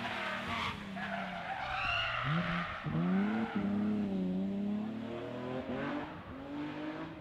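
BMW M3 E36 rally car's straight-six engine working hard through a corner, revs falling and then rising sharply twice as the driver gets back on the throttle, with a brief tyre squeal.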